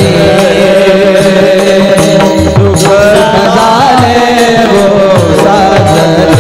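Devotional kirtan music: held keyboard tones under a melody that bends up and down around the middle, with regular bass strokes on a pakhawaj barrel drum and the clink of small taal hand cymbals keeping the beat.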